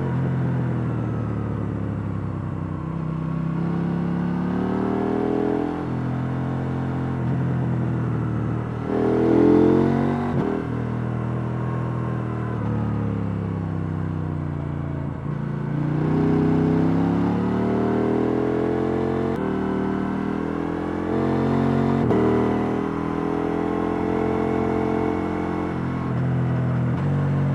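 KTM 890 Duke R's parallel-twin engine on its stock exhaust, ridden hard: it accelerates again and again with the pitch climbing, then falls back on gear changes and off the throttle, loudest on a hard pull about nine seconds in.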